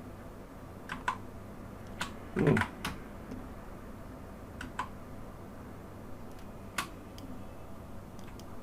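Scattered computer keyboard key presses and clicks, a handful of separate sharp taps with a louder knock about two and a half seconds in.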